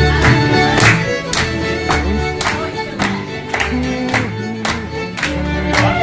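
Fiddle music with a steady beat of about two strikes a second.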